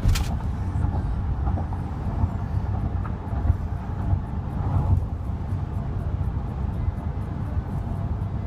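Steady low rumble of a car in motion, heard from inside the cabin, with a sharp click right at the start.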